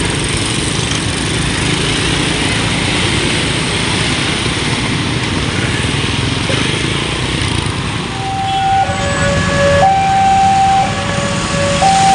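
A steady rushing, rumbling noise, then about two-thirds of the way in a two-tone 'telolet' basuri horn starts playing, alternating a higher and a lower note about once a second.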